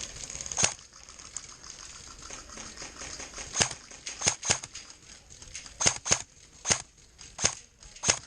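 Airsoft guns firing single shots: about ten sharp snaps, one shortly after the start and the rest from about three and a half seconds in, spaced irregularly.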